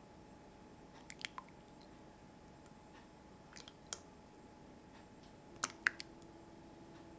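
Soup being ladled into a porcelain bowl: faint wet clicks and drips, then near the end the ladle knocks against the bowl two or three times and leaves a faint ring.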